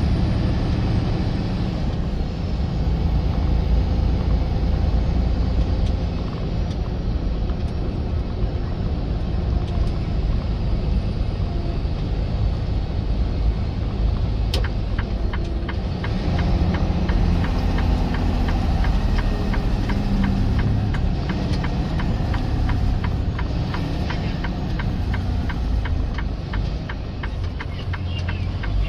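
Semi-truck engine and road noise, a steady low rumble. About halfway through, a rapid, regular ticking joins it.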